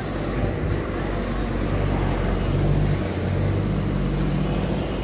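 Road traffic: engines of cars and a bus running as they pass close by, a steady low hum.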